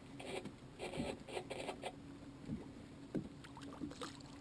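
Spinning fishing reel cranked in several short bursts, a child reeling in a hooked fish with lift-and-reel strokes, followed by a few scattered knocks, over a steady low hum.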